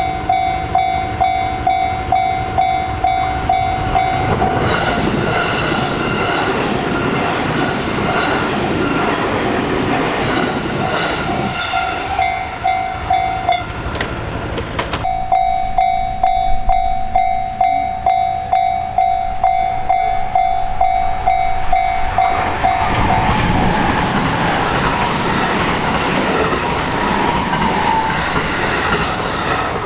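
Japanese railroad crossing's electronic warning bell ringing in a steady pulsing rhythm while an electric commuter train runs through with wheel and rail noise. The bell breaks off briefly about halfway, then starts ringing again, and a second train passes in the latter part.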